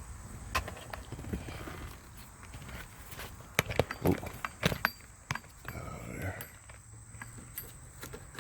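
Irregular clicks and knocks of hands handling plastic interior trim in a car, with a cluster of sharp snaps near the middle, as a seatbelt cover is fitted back into place.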